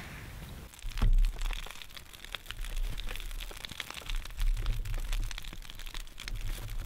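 Wood campfire crackling with many scattered sharp pops, starting about a second in, while wind gusts on the microphone in a low rumble.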